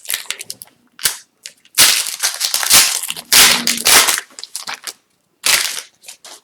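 Foil wrapper of an Upper Deck hockey card pack being torn open and crumpled by hand: loud crinkling, heaviest for about two seconds starting near the two-second mark, with a shorter crinkle near the end and lighter rustles between.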